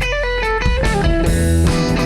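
A band playing a funky song: a guitar plays a melody line of quick stepping notes over bass guitar and drums.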